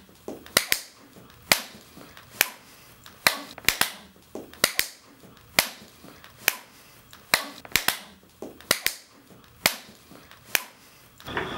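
A series of sharp clicks, about twenty in all, spaced unevenly at roughly one to two a second.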